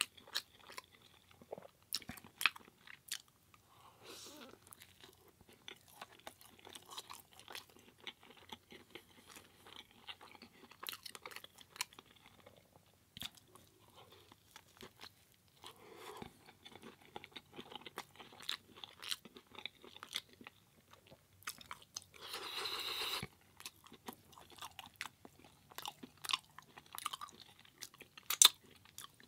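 A person chewing mouthfuls of a vegan curry burrito close to the microphone, with many small mouth clicks and smacks. About three quarters of the way through comes a louder, noisier sound lasting about a second.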